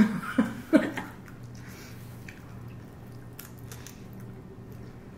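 Close-miked eating of sushi rolls: a few short, loud wet mouth sounds in the first second, then quiet chewing with scattered soft clicks over a steady low hum.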